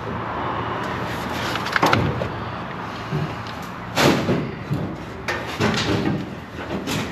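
Several irregular knocks and clunks as hands and a work light bump against the metal of a truck's engine bay, over steady background noise.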